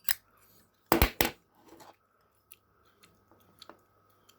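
Zippo lighter lid clicking open and snapping shut: sharp metallic clicks, one at the start and two louder ones close together about a second in, followed by fainter handling clicks.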